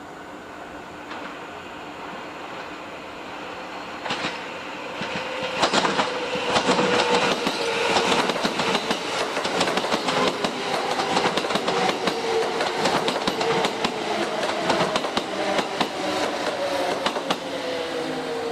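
Electric train moving along the station tracks. The wheels clatter over the rail joints with a steady whine beneath, growing loud about five seconds in and staying loud.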